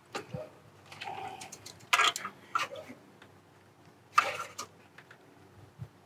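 Ratchet and socket clicking and clinking on a bolt as it is snugged down: a few scattered sharp metallic clicks, the loudest about two seconds and about four seconds in.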